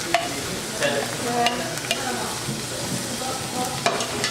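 Thinly cut carrot strips sizzling as they fry in hot oil in a pan, with a few sharp clicks against the pan.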